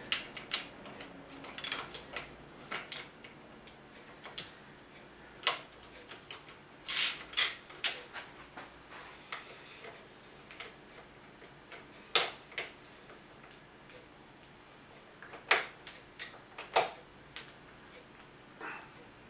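Sparse, irregular metal clicks and clinks from hand tools on a Bridgeport J-head milling machine: a socket ratchet on a swivel extension working on the head's bolts, and the head's top housing being handled.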